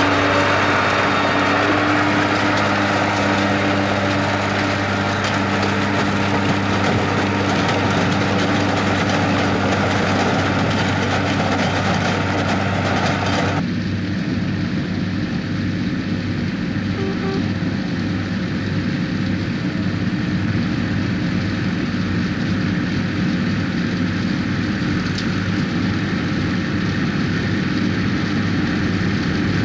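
Tractor engines running under load with the rattle of sugar beet lifting machinery close up. About halfway through it cuts abruptly to a duller, steadier mix of tractor engines and a beet harvester working.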